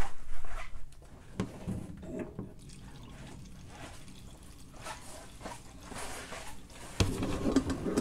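Gasoline dripping and then running from a Ford Model A's disconnected fuel line into a plastic gas can. It grows louder and steadier about seven seconds in as the fuel starts to flow, a sign that fuel is reaching the carburetor.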